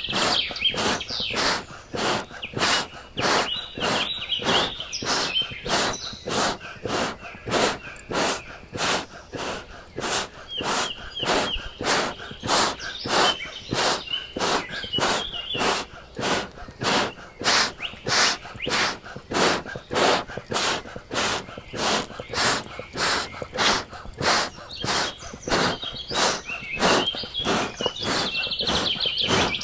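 Hand bellows pumped steadily onto charcoal, each squeeze a short rush of air, about two a second, fanning the coals to a red glow. Birds sing in the background.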